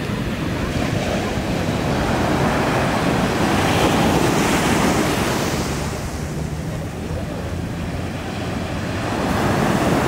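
Ocean surf breaking and washing up a sandy beach, with wind noise on the microphone. The wash swells louder about four seconds in and again near the end.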